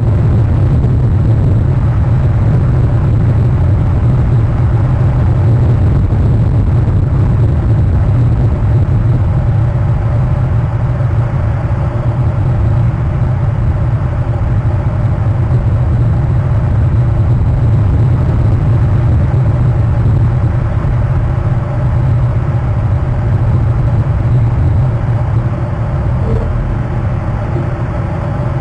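Steady low rumble, loud and unbroken, with no distinct events.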